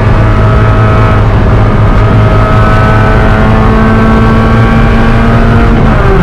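Spec Miata race car's four-cylinder engine running hard at high revs, its pitch steady and climbing slowly, then dropping sharply near the end at a gear change.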